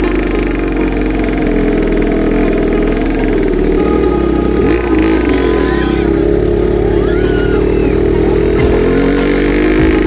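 ATV engine running steadily, its pitch wavering a little around the middle.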